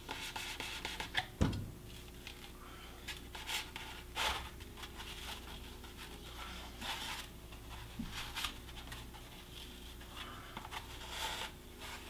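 Faint rustling and scraping as a mounted grouse's feathered body is handled and pushed into a foam block, with one soft thump about a second and a half in.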